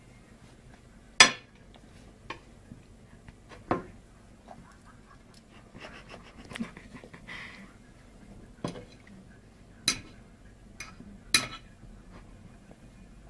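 Fork and knife clinking and scraping against a plate as pieces of meat are cut, in several sharp clinks at irregular intervals.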